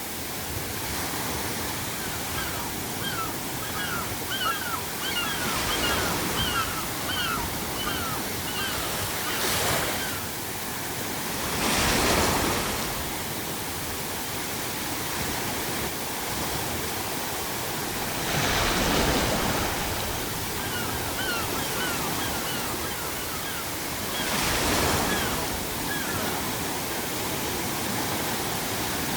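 Ocean waves breaking on a shore every few seconds over a steady pink-noise hiss. Seagulls call twice in quick runs of short cries.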